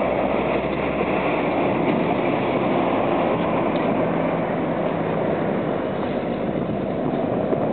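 Aerospatiale AS355 Twinstar police helicopter in flight after takeoff, its twin turbine engines and rotor giving a steady noise.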